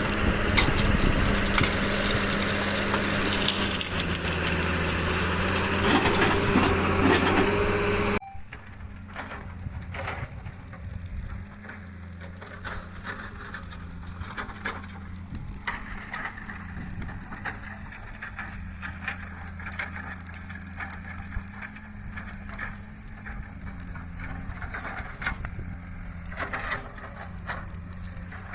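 Excavator's diesel engine running under load while it crushes and breaks rubber-tree wood, with cracking and splintering. About eight seconds in the sound drops suddenly to a quieter engine hum with scattered snaps and cracks of wood.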